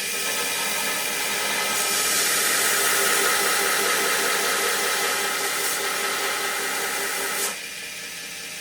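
AmeriBrade 2x72 belt grinder running, with a knife blade pressed to the belt on the waterfall platen: a steady motor and belt hum with a louder grinding hiss from about two seconds in that stops suddenly near the end as the blade is lifted off.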